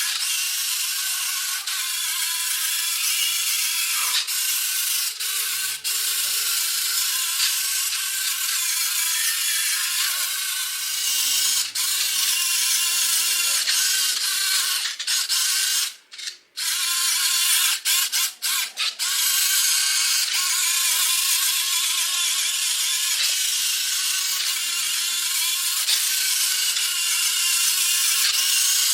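Small electric motor and plastic gearbox of a toy model car converted to remote control, running with a steady high, rattling buzz. It cuts out briefly about halfway through, stutters a few times, then runs on.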